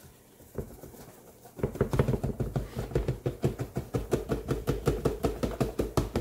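Cardboard box of dry pancake mix shaken rapidly over a plastic storage container as the powder pours out, in a steady rhythm of about six shakes a second starting about a second and a half in.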